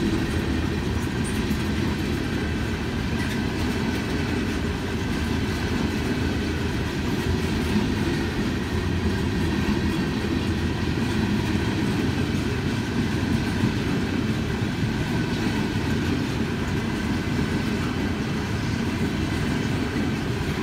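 Long freight train of black open-top gondola cars rolling steadily past: a continuous low rumble of steel wheels on the rails.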